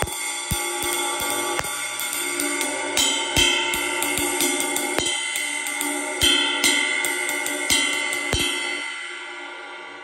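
A 21-inch Centent Emperor B20 bronze ride cymbal played with a wooden drumstick: a run of quick stick strokes with a few louder accents, the cymbal ringing and shimmering under them. The last stroke falls a little after eight seconds in, and the ring then fades away.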